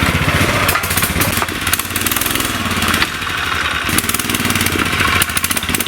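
Small boat outboard motor running at a steady speed: a rapid, even engine beat with a steady hiss over it.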